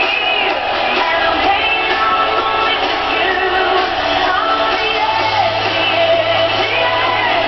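A pop song with a singer's voice plays over a full backing track.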